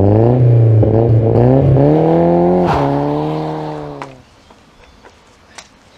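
Car engine revving, its pitch climbing in a few surges with short breaks between them, then fading away about four seconds in. It accompanies the channel's logo animation.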